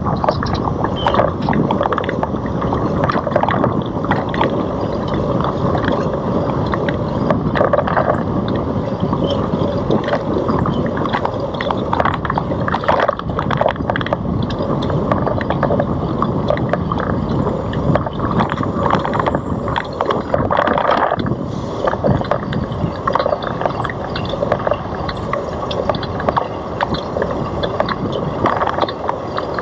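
Riding noise from a Citi Bike on the move: a steady rush of wind over the camera microphone, with frequent rattles and knocks from the bike running over the pavement.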